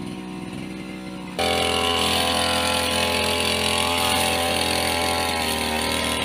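Backpack two-stroke brush cutter engine running at a steady high speed. It gets suddenly louder about a second and a half in, and its pitch sags slightly near the end.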